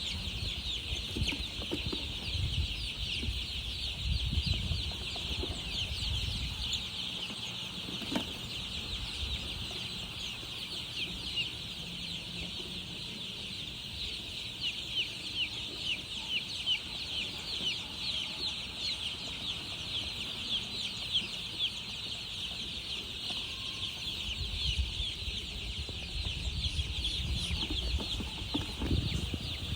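Many baby chicks peeping at once: a dense, continuous chorus of short, high, overlapping cheeps. A low rumble runs under it for the first several seconds and again near the end.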